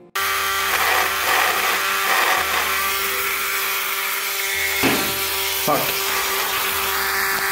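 Cheap manicure rotary tool with a diamond bit grinding into a wine glass: a steady motor whine over a gritty grinding hiss, starting abruptly and cutting off just before the end. The tip is jumping against the glass, which the engraver puts down to grime in the tool's bearing.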